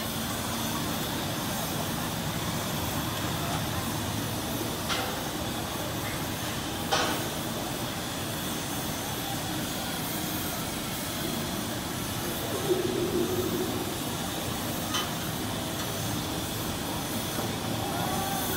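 Denver & Rio Grande No. 340, a narrow-gauge steam locomotive standing at rest, hissing steadily, with three brief sharp knocks in the course of it.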